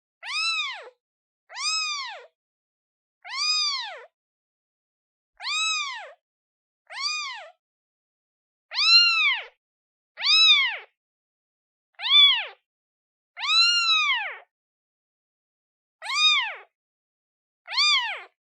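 A newborn kitten, a day old, meowing over and over as it calls for its mother. There are eleven short, high cries, each rising and then falling in pitch, coming every one to two seconds.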